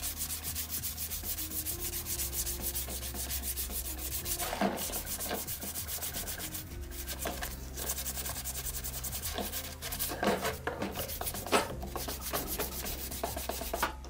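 Hand-sanding the base of a table fan with a folded sheet of waterproof abrasive paper: quick back-and-forth rubbing strokes that keep going, with a few louder scrapes.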